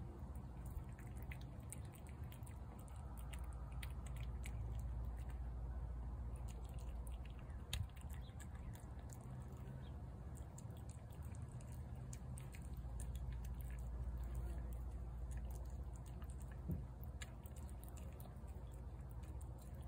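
A cat chewing and smacking wet food from a plate: scattered small clicks and wet smacks throughout, over a steady low background rumble.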